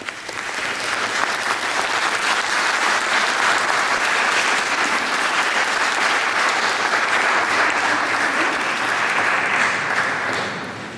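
Audience applauding, a dense patter of many hands clapping that swells up over the first second, holds steady, and dies away near the end.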